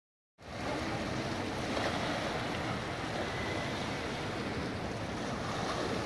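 Sea waves washing in at the shore in a steady rush of surf, with wind rumbling on the microphone.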